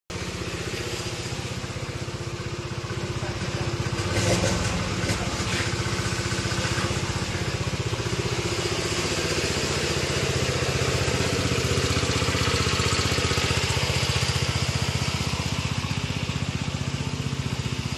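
Small engine of a portable water pump running steadily at a constant speed, pumping out floodwater.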